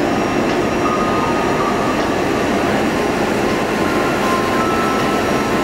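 Steady cabin noise of an Airbus A320-200 on descent, heard from inside the cabin: engine and airflow noise, with a faint steady whine.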